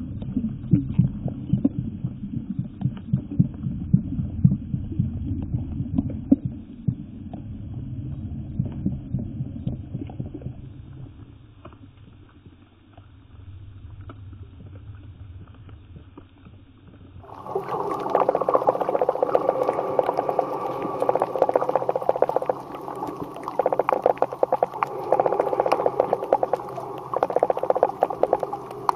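Muffled underwater sound of water moving around a camera: a low rumble with scattered clicks that fades for a few seconds, then about two-thirds through turns abruptly louder and brighter, with dense crackling clicks.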